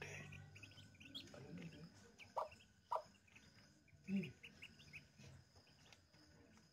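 Newly hatched Muscovy ducklings peeping faintly: many short, high peeps scattered throughout. A few louder, lower short sounds come a little after two, three and four seconds in.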